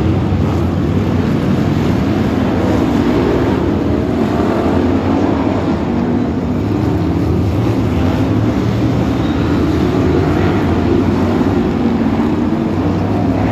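Several BriSCA F1 stock cars' big V8 engines running hard together as the pack races around a shale oval. The result is a loud, continuous engine din with several overlapping engine notes and no let-up.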